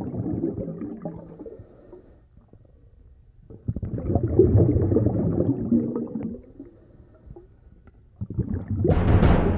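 Low rumbling, gurgling sound in two swells, the second louder, with a loud burst of music starting near the end.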